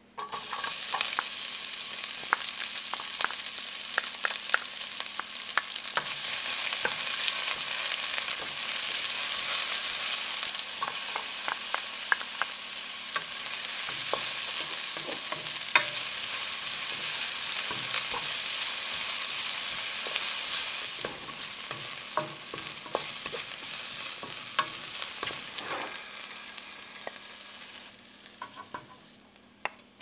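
Sliced shallots and garlic sizzling in hot oil in a stainless steel pot. The sizzle starts suddenly as the shallots hit the oil, and scattered clicks and scrapes come from a wooden spatula stirring against the pot. The sizzle dies down over the last few seconds.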